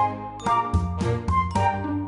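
Upbeat, light background music with a steady beat of plucked or struck notes over a bass line.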